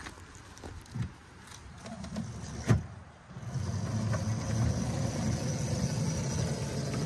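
Small-gauge scale locomotive rolling along the miniature track: a steady rattling rumble of its wheels on the rails begins about three and a half seconds in. A single sharp knock comes just before it.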